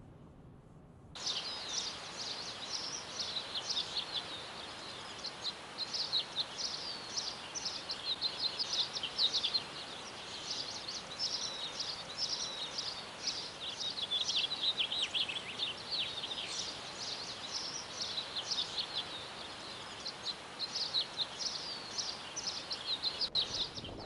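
Many small birds chirping and singing at once, a dense run of overlapping high chirps over a steady hiss. It starts abruptly about a second in and stops shortly before the end.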